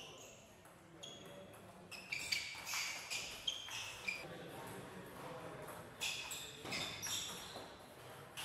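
Table tennis ball clicking off the STIGA table and the players' bats in two short rallies, a quick run of bright pocks starting about two seconds in and another about six seconds in.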